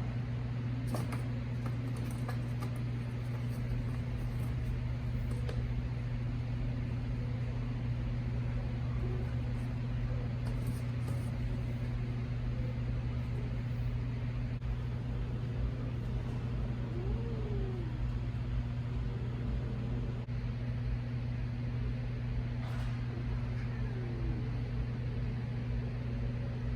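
Steady low mechanical hum throughout, with a domestic cat giving a few faint, short meows in the second half.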